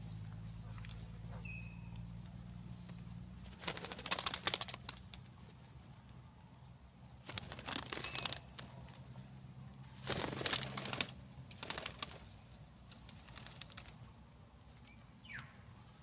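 Green parakeets' wings flapping as they fly in and land on a tree trunk, in several short bursts about 4, 8, 10, 12 and 13 seconds in, over a faint low hum.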